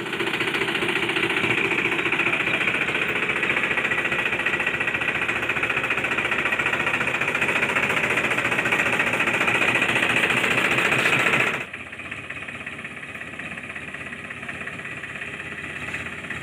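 Tractor engine running with a rapid, steady knocking chug. It drops to a noticeably quieter level about twelve seconds in.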